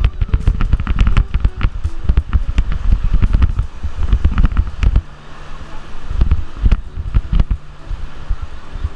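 Water splashing and wind buffeting the microphone on a river raft: a dense run of crackling knocks over low rumble, easing about halfway through.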